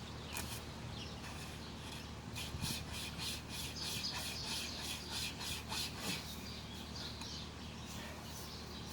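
Braided-wire survival saw rasping through a tree branch in quick back-and-forth strokes, about four a second in the busiest stretch, slowing and easing off now and then.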